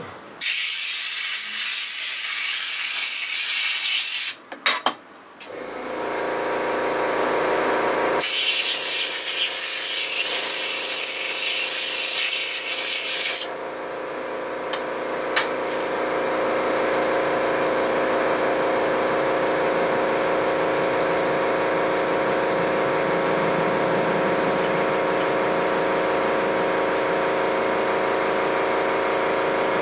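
A woodworking power tool's motor starts about five seconds in and runs steadily. Two loud hissing bursts of a few seconds each come about a second in and about eight seconds in; the first comes before the motor starts.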